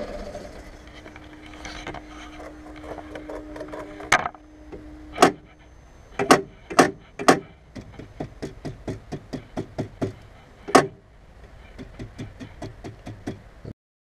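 A series of sharp knocks and clicks over a low steady hum. Several loud knocks come between about four and eleven seconds in, then a faster run of lighter ticks, and the sound cuts off suddenly just before the end.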